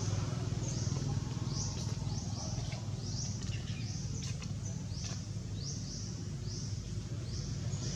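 High-pitched chirps repeating every half second or so, over a steady low hum.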